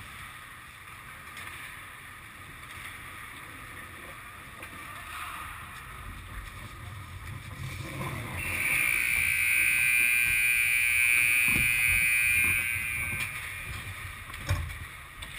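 Ice rink scoreboard horn sounding one steady, loud blast for about four and a half seconds, starting just past halfway, marking the end of play. Skate and stick noise on the ice before it, and a sharp knock near the end.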